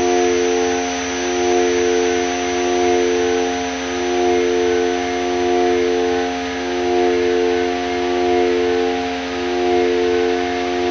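Korg Volca Modular synthesizer playing an FM drone: several held tones over a bed of hiss, swelling and fading in level about every second and a half.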